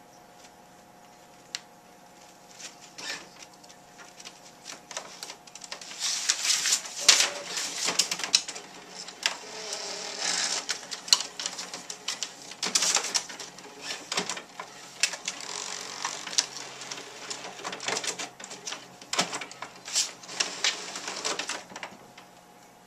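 Sheets of printer paper rustling and crinkling in irregular bursts as a cat paws and pushes at them on an inkjet printer, mixed with sharp clicks and taps. It starts about two seconds in, is loudest from about six seconds in, and dies away near the end.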